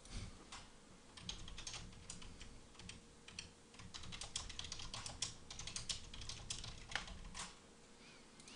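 Computer keyboard typing: faint, irregular keystrokes in quick runs, stopping about a second before the end.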